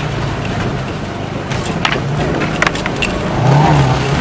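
Saab 96's V4 engine running under load, heard from inside the car as it climbs a rough, muddy track, with several sharp knocks and rattles as the car bounces over the ruts. The engine gets louder near the end.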